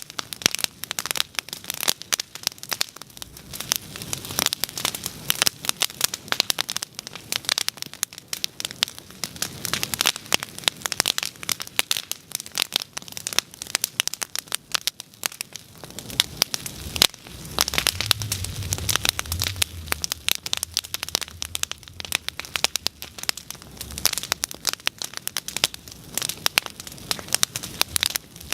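Wood bonfire crackling with dense, irregular snaps and pops, and a soft low rumble for a few seconds past the middle.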